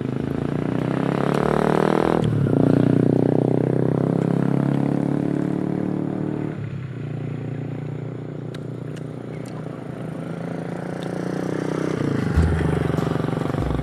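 A small motor engine running close by, its pitch and loudness rising and falling several times, with sharp changes about two seconds in, near the middle and near the end.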